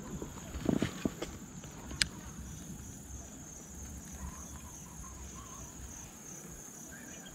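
Steady high insect drone, with a few sharp clicks and knocks in the first two seconds from handling a spinning reel.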